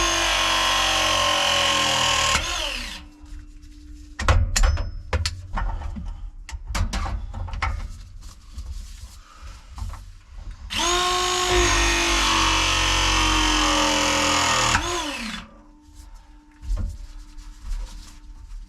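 Battery-powered pipe press tool running pressing cycles on plumbing fittings: a steady motor whine that ends with a falling pitch as the jaws release, once ending a couple of seconds in and again for about four seconds from about eleven seconds in. Clicks and knocks of handling the pipe and tool come between the cycles.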